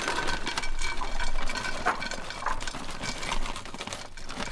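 Shredded hash browns poured from a bag into an oiled skillet, the shreds pattering into the pan in a dense, irregular spill.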